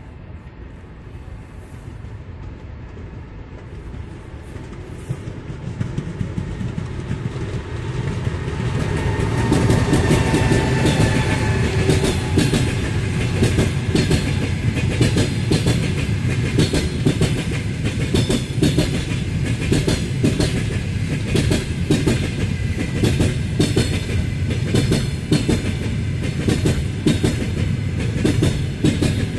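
Passenger train hauled by an EP20 electric locomotive rolling in and passing close by: the sound grows over the first third, a whine falls in pitch as the locomotive goes by, then the coaches' wheels clack steadily over the rail joints.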